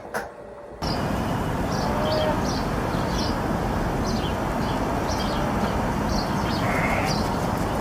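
Steady outdoor background noise with small birds chirping over it in short high calls, a few each second. It sets in suddenly just under a second in, after a brief quieter moment.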